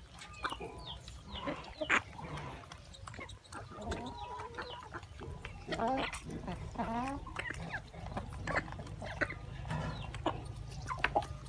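Chickens clucking and giving short calls, some rising and falling, as they feed at a split-open green coconut, with scattered sharp clicks of beaks pecking at it.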